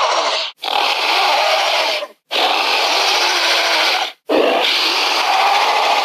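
Dinosaur roar sound effect: a harsh, hoarse animal-like call played over and over, each call lasting about one and a half to two seconds with a short break between them.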